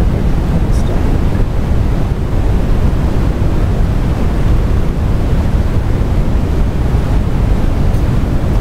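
Loud, steady rumbling background noise, strongest in the low range, with no distinct events in it.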